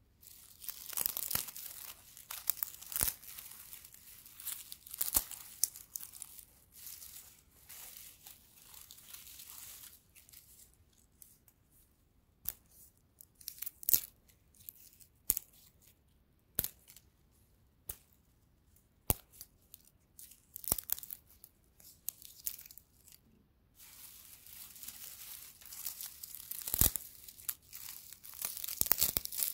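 Fingers rubbing, bending and snapping dry straw stalks close to the microphone: a crisp crackling rustle with sharp snaps of breaking stalks. It thins to scattered single snaps in the middle and grows busier again near the end.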